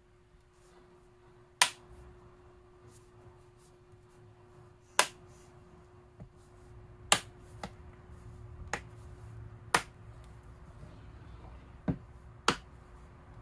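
Sharp clicks, about eight of them at uneven intervals, as the Acer Switch tablet's case is pressed back together and its clips snap into place.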